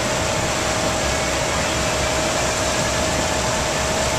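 Tour boat's engine running steadily as the boat gets underway: an even rushing noise with a low rumble and a constant mid-pitched whine.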